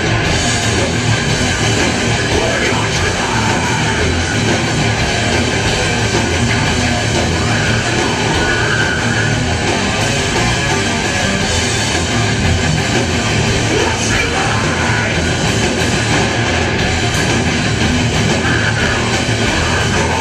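Heavy metal band playing live, with electric guitars, bass and drums in a loud, dense, unbroken wall of sound.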